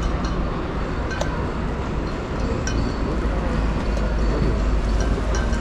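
Steady low rumble of a group of Royal Enfield single-cylinder motorcycles running, with a few short metallic clinks.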